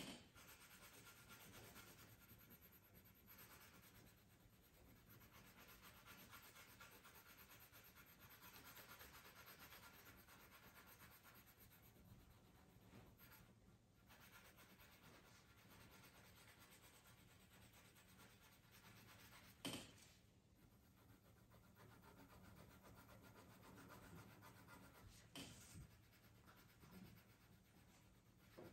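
Colored pencil rubbing back and forth on coloring-book paper, faint and steady, with a couple of light knocks about two-thirds of the way through and near the end.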